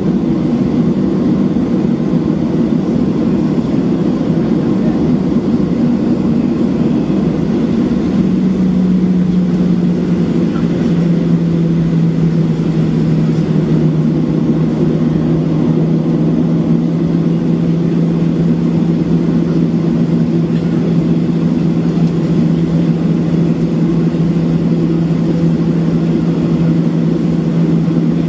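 Cabin noise of a Boeing 737-700 taxiing, its CFM56-7B turbofans running at low taxi power under a steady rush of air and rumble. About eight seconds in, a steady low hum joins and holds.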